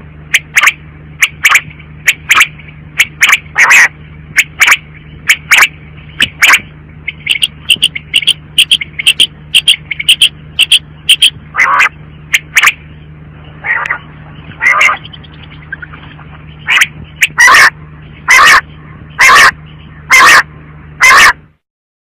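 Female common quail calling: a long series of short, sharp calls at uneven spacing, some in quick runs, over a steady low hum. Near the end come five louder calls about a second apart, then the calling stops.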